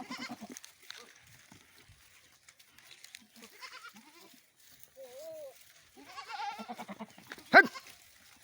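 Goats bleating now and then: a wavering bleat at the start, a short call about five seconds in, and a longer bleat past the six-second mark. A brief, very loud sharp sound comes near the end.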